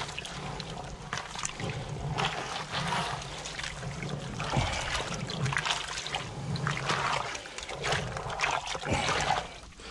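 Water trickling and splashing around a plastic bucket being handled, with irregular small knocks and scrapes throughout.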